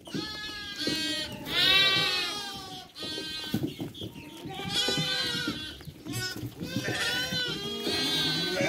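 A flock of sheep and lambs bleating, many calls overlapping one after another.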